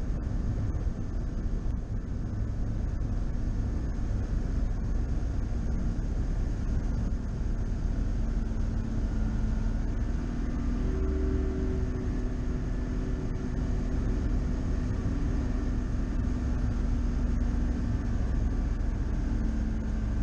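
A bass boat running on the river: its outboard motor drones steadily under a rush of wind and water noise on the boat-mounted microphone. A clearer engine tone comes through about halfway in.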